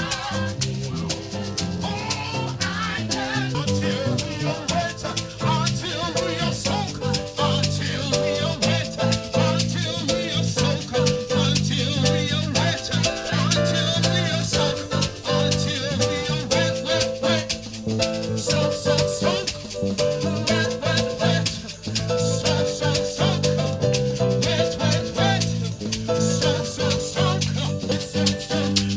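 Upbeat gospel praise music played by a live band, with a rattling shaker keeping a fast rhythm over sustained bass and chords.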